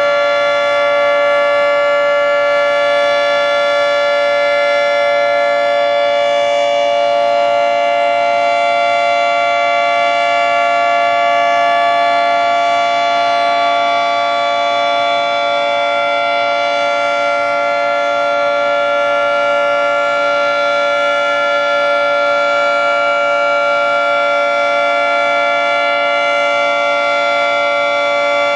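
Federal Signal 3T22 three-tone outdoor warning siren sounding a full-alert signal, holding one steady, unwavering chord at a constant loud level.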